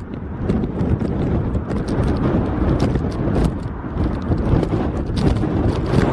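Airliner cabin noise on a storm-buffeted landing approach: a steady low rumble with rapid, irregular clattering and knocks as the aircraft is shaken by strong gusting wind.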